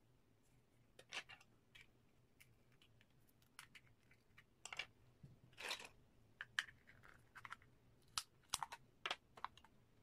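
Faint, irregular small clicks and short scrapes of tweezers and fingers handling a stripped iPhone 5 rear housing and its small parts, busiest around the middle and again near the end.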